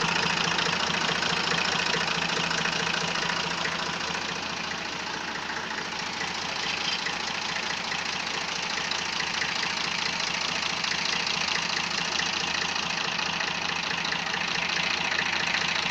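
Perkins three-cylinder diesel engine of an old forklift idling steadily, with an even diesel knock.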